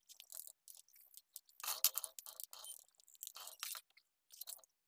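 A hand swishing and splashing soapy detergent water in a metal basin, in irregular sloshes, the biggest about two seconds in and again around three and a half seconds in.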